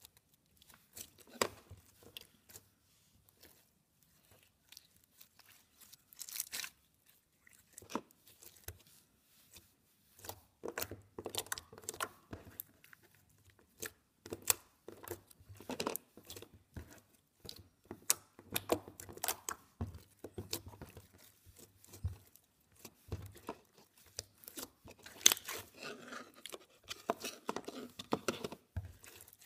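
Hands stretching, squeezing and poking a clicky slime full of sunk-in beads, making irregular small clicks and crackles. The clicks are sparse at first and come thicker and faster from about a third of the way in.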